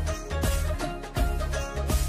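Background music with a strong bass beat, about two beats a second, and a sustained melody over it.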